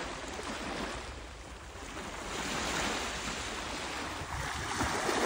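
Small sea waves breaking and washing over a shallow shore, a steady rushing that grows louder about halfway through.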